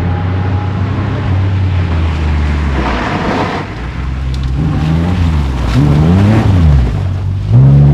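Rally car engine heard from inside the car on a gravel stage. It drones steadily at first, with a short rush of gravel noise about three seconds in. Then the revs rise and fall several times, with a sharp climb in revs near the end.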